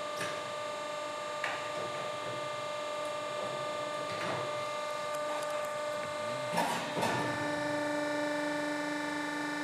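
Corghi AGT Tilt Car Mate tyre changer's electric drive humming steadily, with a few light clicks and knocks. About seven seconds in, after two knocks, its tone changes as a lower hum comes in.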